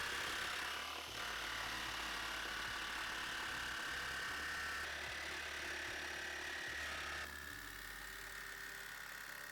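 Electric jigsaw running steadily as its blade cuts through a metal door, a constant motor whine over a low buzz.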